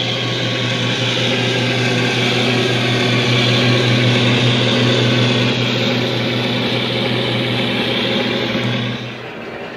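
Class 42 Warship diesel-hydraulic engine sound from a model locomotive's DCC sound decoder (Howes sound file) playing through an EM2 speaker, a steady engine drone with a low hum as the model runs under power. The sound drops a little in level about nine seconds in.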